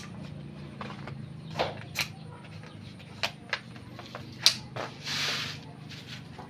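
Scattered sharp knocks and clacks, five or six of them with the loudest about four and a half seconds in, over a steady low hum, with a short hiss about five seconds in.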